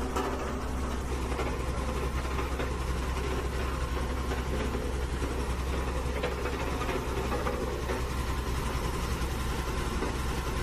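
Small electric motor of a homemade miniature road roller running steadily as the model drives, a continuous engine-like hum with a low drone.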